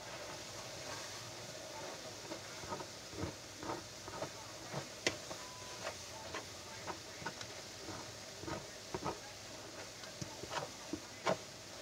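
Metal spoon stirring thick white soap paste in a plastic measuring jug, giving irregular clicks and scrapes as it knocks against the jug's sides and bottom, over a low steady hiss.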